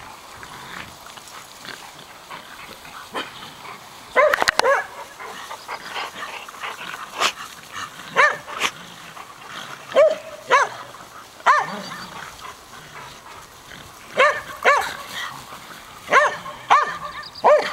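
Dogs barking in short, high barks, often two or three in quick succession, with gaps of one to a few seconds between the bouts.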